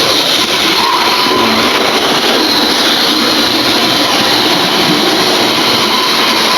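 Model railway locomotive running along the track: a steady whirring of its motor and wheels on the rails, with a faint steady whine.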